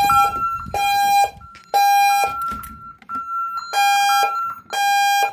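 Honeywell Vista 20P alarm system sounding a fire alarm, tripped by a garage pull station: harsh half-second beeps in the temporal-three pattern, three beeps a second apart, a pause, then three more. A fainter, higher tone sounds in the gaps.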